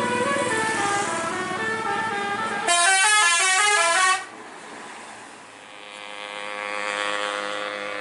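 Bus 'telolet' basuri multi-tone musical horn playing a stepped tune, then a louder, fast trilling run of notes that cuts off suddenly about four seconds in. Fainter steady horn tones follow.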